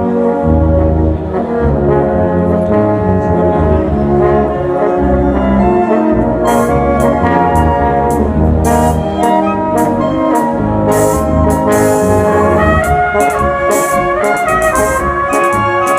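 Brass band playing a polka: a steady bass line under the melody in the upper brass. Sharp rhythmic strikes join in about six and a half seconds in.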